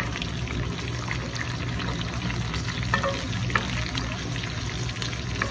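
Eggplant and other vegetables sizzling in oil in a non-stick frying pan, stirred with a wooden spatula that clicks and scrapes against the pan now and then.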